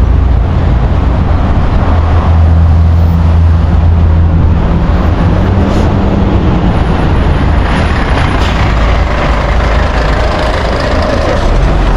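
Street traffic: a heavy vehicle's engine rumbling past, with a low drone that swells and then eases off around the middle.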